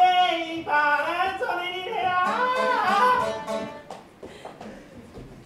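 Actors singing on stage with instrumental accompaniment, the voice holding and bending sung notes; the singing stops about four seconds in, leaving only faint scattered noises.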